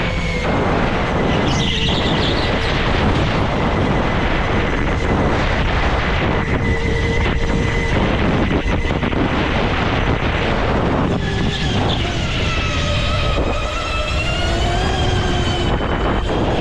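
Onboard sound of a go-kart being driven on track: its motor's pitch rises and falls with speed through the corners, over steady wind and road noise.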